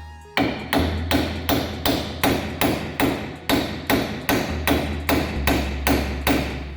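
Hammer blows in a steady, even run of about sixteen strikes, roughly two and a half a second, starting just after the start and stopping shortly before the end.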